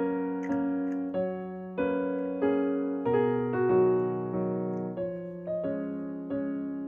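Background music: gentle piano or electric piano playing a slow melody, a new note struck about every half second to second, each ringing and fading.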